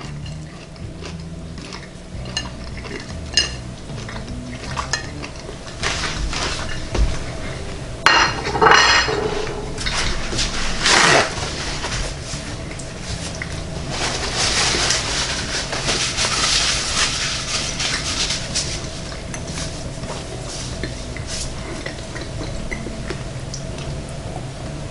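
Someone eating crisp air-fried bacon: small crunchy clicks of chewing, a plate handled with light clinks, a paper towel rustled against the mouth, and sips from a glass of water near the end.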